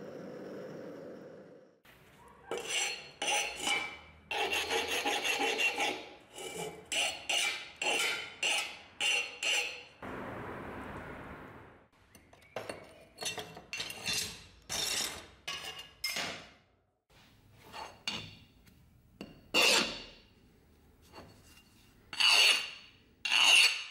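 A file drawn across a hardened steel axe head in repeated short rasping strokes, many of them in a run, then more spaced out. For about the first two seconds there is a steady rush of oil burning in the quench pot.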